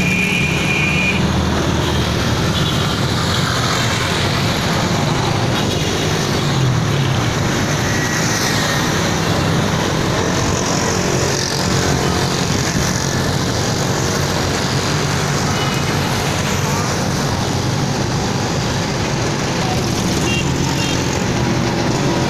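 Busy city road traffic: motorcycles, cars and auto-rickshaws passing close by with their engines running, a steady mix of engine noise and tyre noise.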